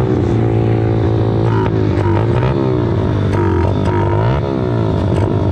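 Several pit bike engines at the starting gate, idling under a steady low drone while others are blipped and revved up and down over and over, their pitches crossing each other.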